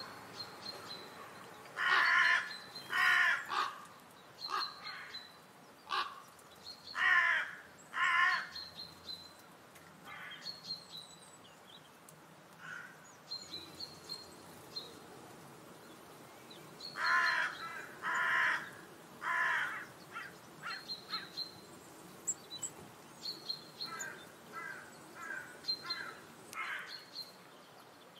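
Wild birds calling: loud harsh calls, mostly in sets of two or three about a second apart, with a smaller bird's short high chirps repeating in between.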